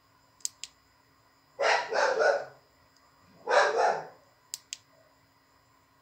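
A dog barking in two short bouts, about a second and a half apart; these are the loudest sounds. Before the first bout and after the second comes a pair of quick, sharp clicks.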